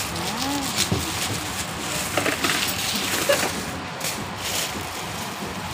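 Supermarket checkout background noise with distant voices, and a few short rustles and knocks of groceries being handled, mostly in the middle and near the end.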